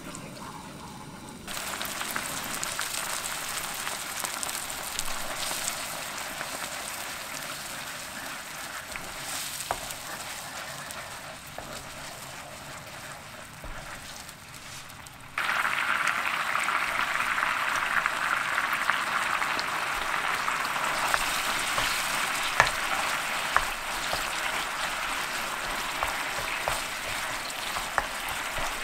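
Black bean sauce sizzling and bubbling in a nonstick frying pan as it simmers down, stirred with a wooden spatula. About halfway through, the sizzle suddenly gets louder, with the chicken pieces now in the sauce, and the spatula taps now and then against the pan.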